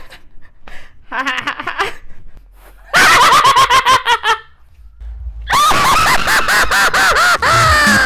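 Several people in turn doing exaggerated evil laughs: a short laugh, then a loud run of choppy "ha-ha" pulses about three seconds in, then a longer loud cackle whose pitch slides down near the end.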